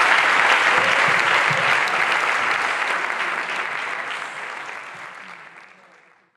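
Large audience applauding, the clapping fading away over the last few seconds.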